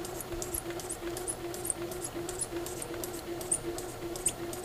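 Electric sewing machine running at a slow speed setting: a steady motor hum with a quick, regular ticking as the needle stitches through a paper practice sheet.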